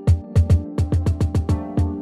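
Soundtrack music: a fast, busy drum beat with deep thudding kicks over a held chord.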